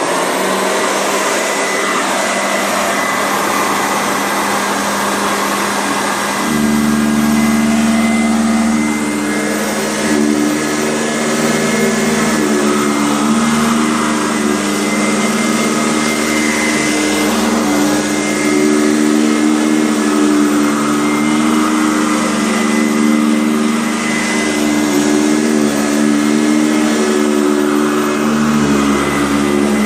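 Kent EUROCLEAN upright vacuum cleaner running steadily, a motor whine with a constant high tone. About six seconds in, a lower, louder hum joins in and wavers slightly as the vacuum is worked.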